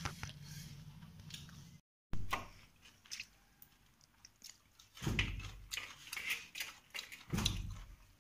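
Eating by hand from a steel plate: chewing with small clicks and crackles of fingers working rice on the plate, and a couple of dull thumps about five and seven seconds in.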